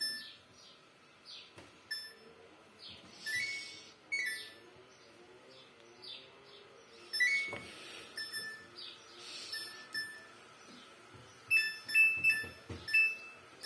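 Samsung AI front-loading washing machine's control panel beeping as its buttons are pressed and its program dial is turned: a string of short electronic beeps at a few different pitches, some rising. Near the end comes a quick run of beeps alternating between two pitches, with soft handling rustles and clicks in between.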